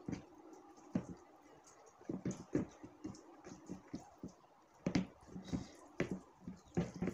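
Eating by hand: fingers mixing rice and dal on a plate, with chewing and mouth smacks heard as irregular soft clicks.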